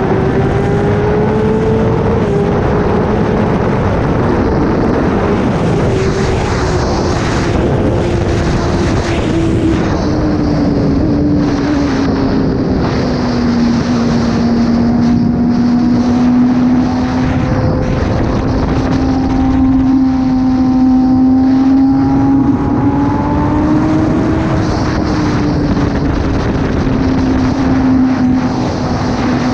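Kawasaki ZX-10R's inline-four engine through an SC-Project exhaust, running at steady cruising revs. The engine note eases down over the first half, holds level, then rises briefly and settles again.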